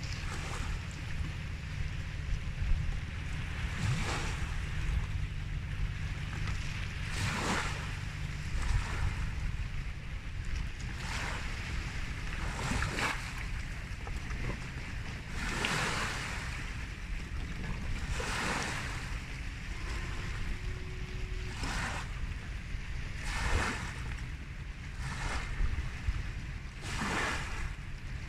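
Waves washing onto a shore every two to three seconds, over a steady low rumble of wind on the microphone.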